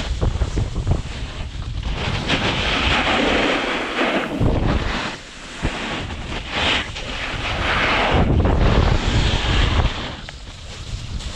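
Wind buffeting the microphone in uneven gusts, with deep rumbling and rushing noise that rises and falls, dipping briefly twice.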